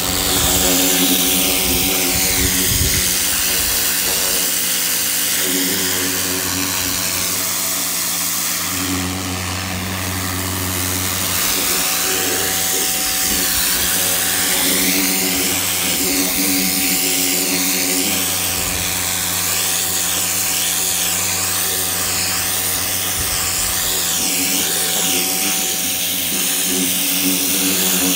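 Electric pressure washer running steadily: the pump motor's hum under the hiss of the water jet spraying onto carpet, the hiss rising and falling as the spray moves.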